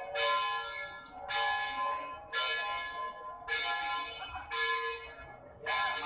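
A bell struck over and over, about one stroke a second, each stroke ringing on and fading before the next.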